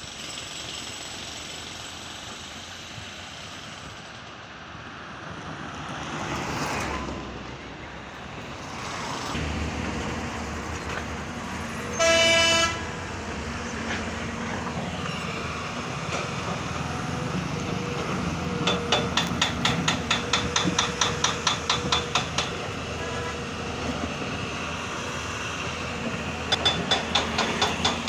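Road traffic going by, with a vehicle passing and then a heavier engine running. A vehicle horn gives one short blast about twelve seconds in, and later a rapid run of short pulsing toots or beeps sounds for several seconds, starting again near the end.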